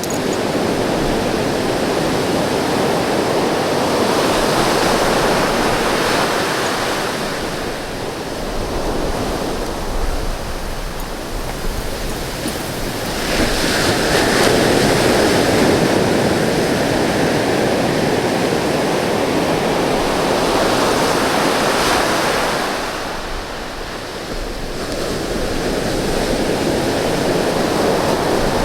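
Ocean surf breaking and washing up the beach: a continuous rush that swells and eases in slow surges, the strongest about halfway through.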